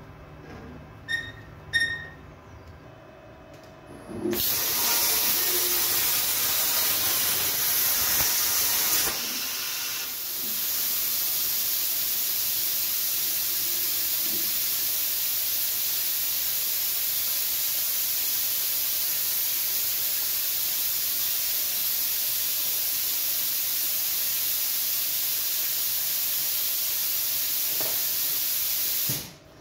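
Two sharp clicks, then the Hypertherm Powermax 45 plasma torch hissing with its compressed-air flow. The hiss is louder for about five seconds, settles to a steady hiss, and cuts off abruptly near the end.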